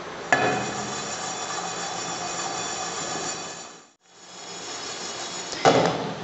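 Aluminium frying pan of whole spices shaken over a gas burner while they dry-roast: the pan scrapes and rings on the steel grate as the seeds and dried chillies rattle inside. It starts sharply just after the start, fades out about four seconds in, then picks up again.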